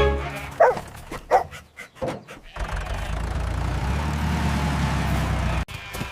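A dog barks a couple of times, then a steady low rumble like a motor runs for about three seconds and cuts off suddenly.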